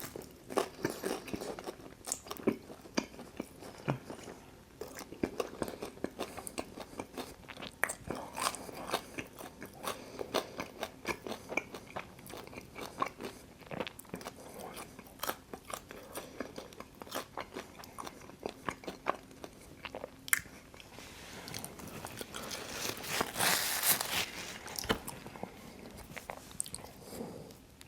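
Close-miked chewing and biting into Detroit-style pizza, with irregular crunching and wet clicks throughout. A few seconds of hiss-like noise come a few seconds before the end.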